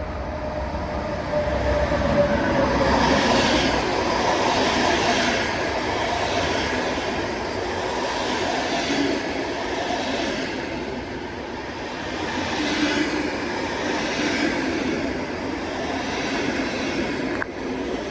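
Vy passenger train hauled by a Class EL18 electric locomotive passing through a station without stopping. Its wheels run on the rails in a steady rumble that swells and eases every few seconds as the coaches go by.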